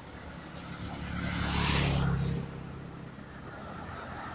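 A road vehicle passing close by: engine and tyre noise swell to a peak about two seconds in, then fade quickly, over steady background traffic.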